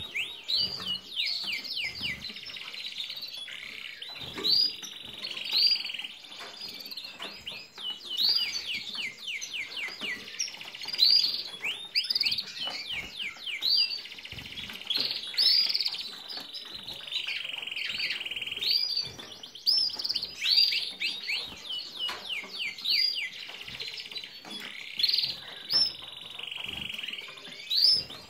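Caged finches singing: long twittering phrases of quick down-slurred notes alternating with drawn-out buzzy notes, running almost without a break.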